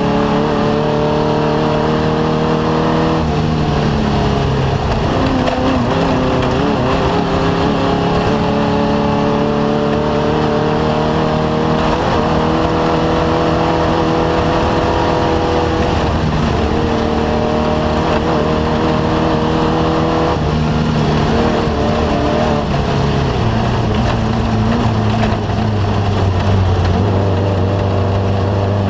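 Off-road race vehicle's engine running hard, its pitch climbing slowly and dropping several times at gear changes, then settling lower and steadier for the last several seconds.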